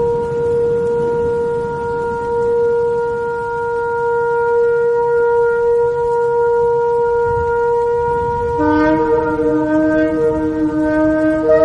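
Shofar (ram's horn) sounding one long, steady held blast. About eight and a half seconds in, a second, lower horn note joins, and the two sound together, the higher one wavering.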